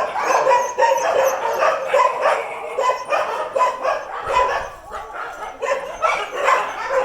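Several dogs barking and yipping at once, a dense, continuous run of overlapping barks.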